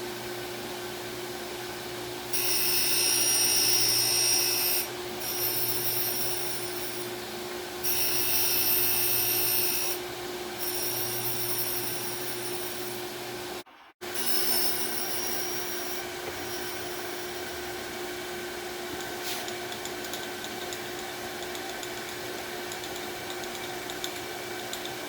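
Surface grinder running with a steady motor hum while its wheel grinds the face of the magnetic chuck to true it flat: a high-pitched grinding hiss comes and goes in passes of two to three seconds as the table travels back and forth, with a brief cut about 14 seconds in. After about 16 seconds only the machine's running hum remains.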